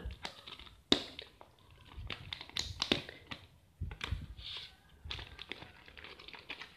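Clear plastic packaging bag crinkling and rustling as it is handled and opened, with irregular sharp crackles, the sharpest about a second in.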